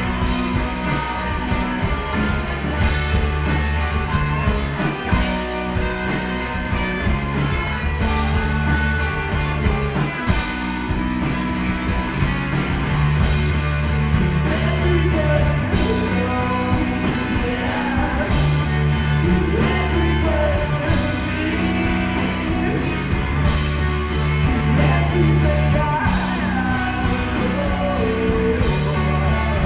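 A rock band playing live, with drums, electric guitars and an electric bass guitar holding sustained low notes.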